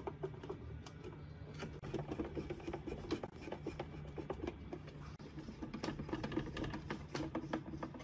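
Long-shaft screwdriver turning screws in the plastic base of an air conditioner's fan-motor assembly: a quick, irregular run of metallic clicks and scrapes.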